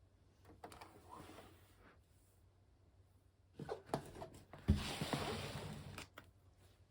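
Packaging and equipment being handled during an unboxing: scattered clicks and light knocks, a soft rustle about a second in, then a sharp knock followed by about a second of rustling.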